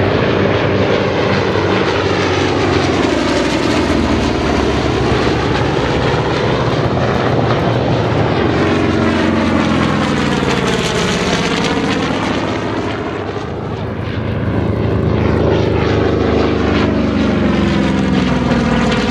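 FG-1D Corsairs' Pratt & Whitney R-2800 radial engines and propellers droning in a fly-by, the engine note sliding up and down in pitch as the planes pass. It dips in loudness about two-thirds of the way through, then swells again as a single Corsair comes by.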